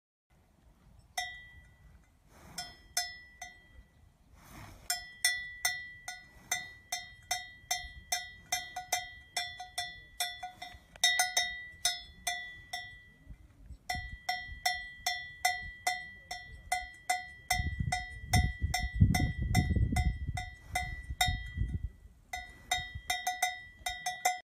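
A cow's neck bell clanking irregularly, two or three ringing strikes a second, stopping briefly twice. A low rumble rises under it for a few seconds in the second half.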